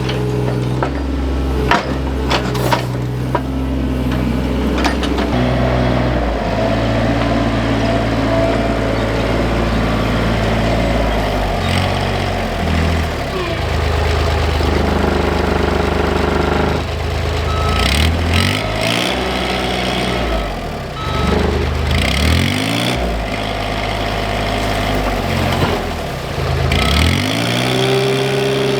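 Diesel engine of small earth-moving plant working under load, its speed rising and falling repeatedly, with metal clanks. A short run of evenly spaced high beeps sounds around the middle.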